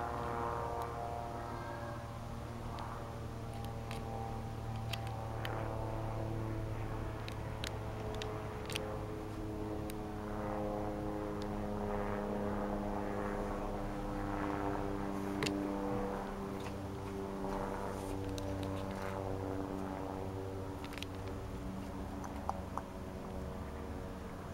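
Aircraft engine drone overhead: a steady, even hum made of several tones whose pitch drifts slowly as the plane passes.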